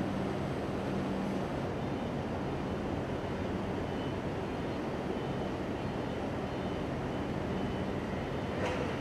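Steady low mechanical hum and rumble with faint droning tones, unchanging throughout, and a single brief click near the end.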